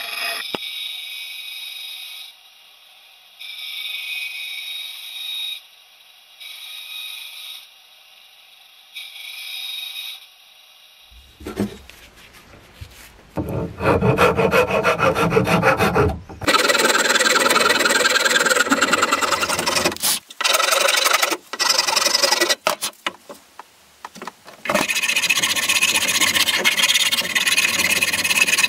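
Band saw blade cutting through a wooden axe-handle blank in four short passes. From about eleven seconds in, a coarse wood rasp scrapes in loud, rapid strokes over the handle wood clamped in a vise, pausing briefly now and then.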